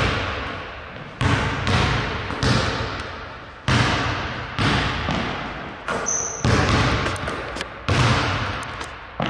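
A basketball bounced hard on a hardwood gym floor in an irregular dribbling rhythm, roughly one to two bounces a second, each bounce ringing out in the hall's echo. A short high squeak comes about six seconds in.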